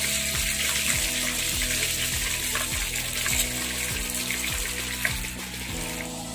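Fish frying in hot oil in a pan, a steady sizzle with a couple of clicks of tongs against the pan; the sizzle drops away near the end. Background music plays underneath.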